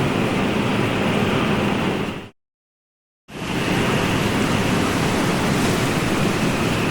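Steady wash of ocean surf, an even rushing noise. A little after two seconds in it fades out to complete silence for about a second, then fades back in, as at the join of a looped recording.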